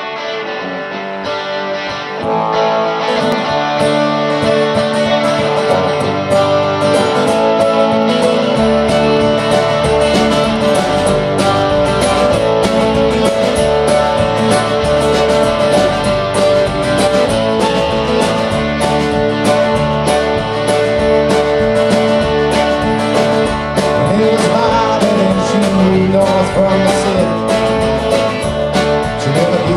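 A live band plays an instrumental intro in a country-rock style: strummed acoustic guitar with electric guitar, with the bass and drums coming in fully about eight seconds in.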